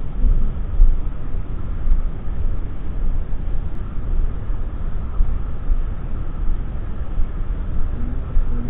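Continuous uneven low rumble of a small motorcycle on the move, with a faint steady whine above it.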